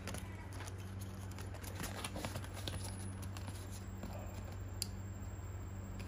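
Light handling noise from a boxed Kai multi-purpose opener being taken out of its packaging: scattered small clicks and taps over a steady low hum.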